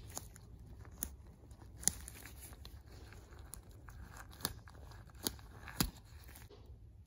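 Gritty scraping and rubbing of a small Hot Wheels toy car part worked by hand against a cutting mat, with about eight sharp, irregular clicks over a low steady hum. The scraping stops about six and a half seconds in.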